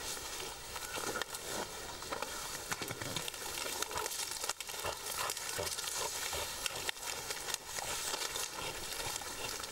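Tall dry grass rustling and crackling as an elephant pushes through it, with scattered sharp snaps of stems.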